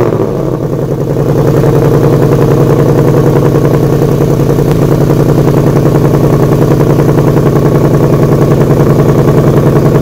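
2018 Ford Mustang GT's 5.0-litre V8 idling steadily through its quad-tip exhaust just after a cold start, with a fast, even pulse.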